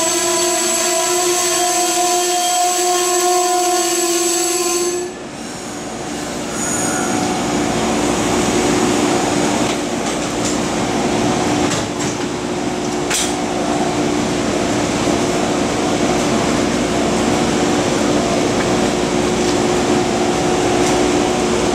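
Amtrak Northeast Regional passenger train braking to a stop at the platform: a steady high-pitched squeal from the wheels and brakes cuts off about five seconds in as the train halts. After that comes a steady rushing hiss and hum from the standing train.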